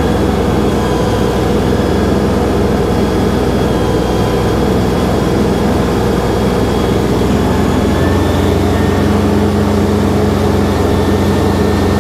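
LS MT342 compact tractor's diesel engine running steadily while the front loader works near its lifting limit with about 2,000 pounds on the forks; the engine's note shifts lower and stronger about two-thirds of the way in.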